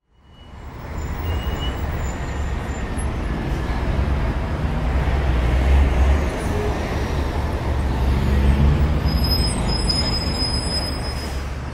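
Outdoor street ambience: a continuous low rumble that fades in at the start and swells twice, about halfway through and again a few seconds later, with faint high chirps near the end.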